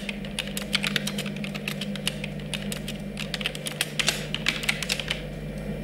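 Typing on a computer keyboard: quick, irregular key clicks that stop about five seconds in, over a steady low hum.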